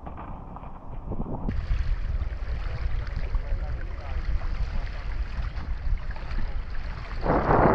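Wind buffeting the microphone over small waves lapping on a stony shore, with a louder gust near the end. For the first second and a half, water sounds from a kayak being paddled.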